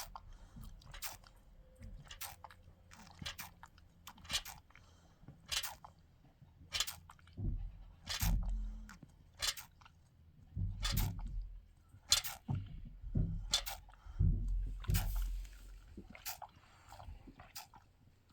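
A Nigerian Dwarf doe crunching and chewing feed, one sharp crunch about every second, with a few low dull thumps in between.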